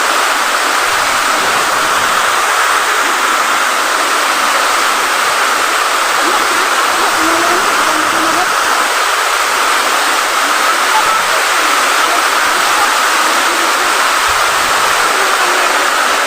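Waterfall: falling water making a loud, steady rush that does not let up.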